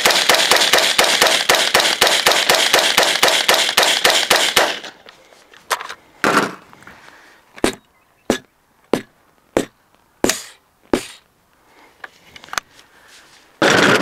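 AR-15 rifle firing a rapid string of semi-automatic shots that stops abruptly about five seconds in. Then come about eight separate sharp knocks, roughly one every two-thirds of a second, as the hot barrel is smacked down hard onto a sheet of OSB.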